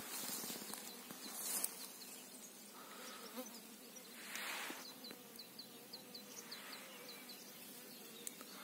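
Bees buzzing at flowers: a faint, thin, steady hum.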